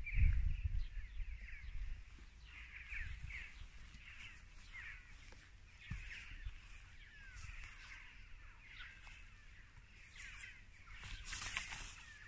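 Birds calling in many short chirps, with a low rumble on the microphone in the first second or two and a brief rustle near the end.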